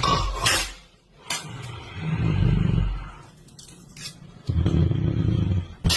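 A person snoring loudly with an exaggerated, rattling snore, twice, between hissing breaths.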